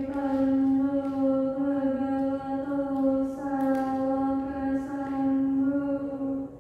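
A woman's voice chanting Buddhist paritta in Pali as a monotone recitation, held on almost one pitch, with a short pause for breath about three seconds in.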